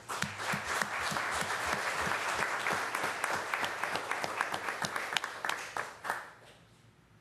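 Applause from a small group: many hands clapping at once, fading out about six seconds in.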